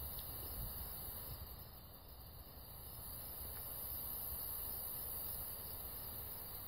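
A steady, high-pitched chorus of insects such as crickets in summer fields, with a low rumble underneath.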